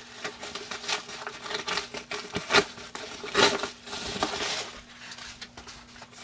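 Shipping packaging rustling and crinkling as a package is handled and opened, with two louder crackles about two and a half and three and a half seconds in. A faint steady hum runs underneath.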